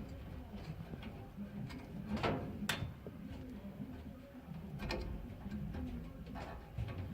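A few light clicks and knocks of tools and metal parts being handled while a furnace burner is hooked up: a sharp one about two seconds in, another near three seconds and one about five seconds in, with fainter ticks between, over a low steady hum.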